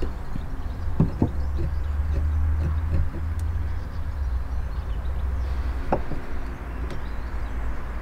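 Wooden battens knocked against each other and against plywood as they are set in place: two knocks about a second in and another about six seconds in, over a low steady rumble.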